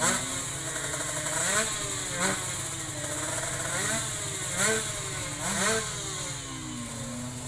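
Tuned two-stroke drag bike engine revved in about five sharp throttle blips, the pitch shooting up and dropping back each time, then settling toward idle near the end.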